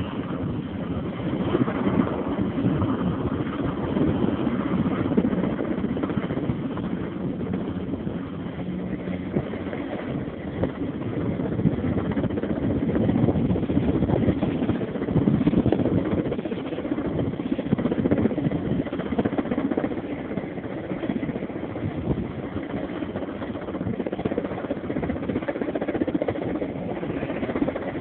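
Sikorsky S-58T helicopter running steadily overhead: the beat of its main rotor over the whine of its turboshaft engines, louder for a few seconds around the middle.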